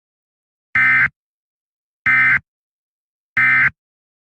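Emergency Alert System end-of-message signal: three short, loud bursts of buzzing digital data tones (the SAME 'NNNN' code), about a second and a quarter apart. They mark the end of the emergency alert.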